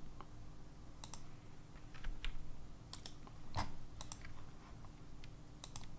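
Scattered clicks of a computer keyboard and mouse, some in quick pairs, over a faint steady hum.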